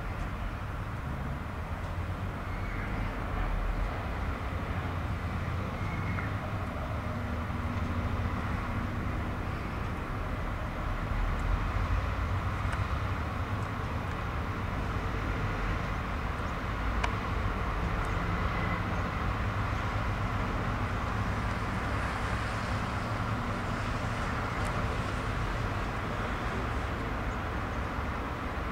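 A cargo ship's engine making a steady low rumble and hiss, with wind buffeting the microphone and a single sharp click about 17 seconds in.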